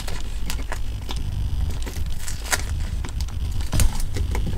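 Black tape being pulled off its roll and wrapped around a small 18650 battery pack: irregular crackles and sharp clicks of the tape, the loudest about four seconds in, over a steady low hum.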